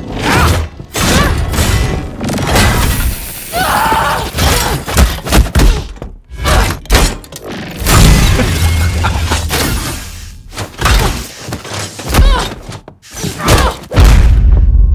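Designed brawl sound effects: a dense run of punches and body impacts with whooshes and glass shattering, ringing in a large reverberant room. Heavy deep hits land about eight seconds in and again near the end.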